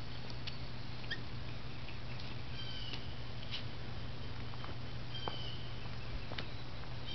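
Quiet outdoor background: a steady low hum with a few faint, short high chirps and light clicks scattered through it.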